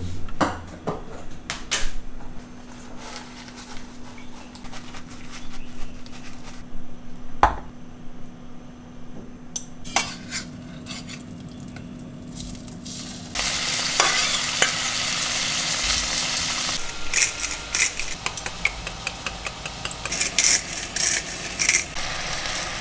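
Scattered kitchen clicks and knocks, then about halfway through a steady sizzle starts in a hot pan. From a little later a wooden spatula stirs and scrapes pieces of fish frying in the pan, in quick clicks over the sizzle.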